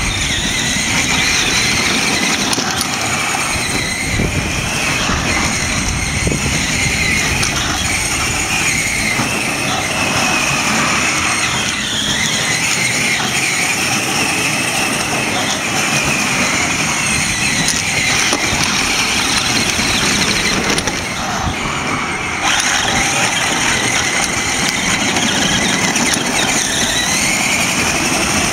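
Electric motors of ride-on toy jeeps whining, the whine rising and falling in pitch as the jeeps speed up and slow down, over the steady rumble of hard plastic wheels rolling on concrete.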